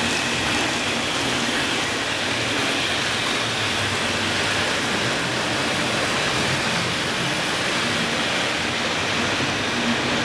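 Steady rushing rumble of N-gauge model trains running on the layout's track, with no distinct clicks or tones.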